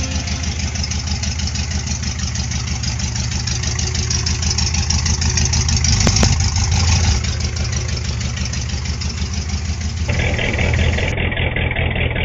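A 1972 Chevrolet pickup truck's engine idling steadily. The engine note swells a little about six seconds in, and the sound changes to a duller recording of the running engine near the end.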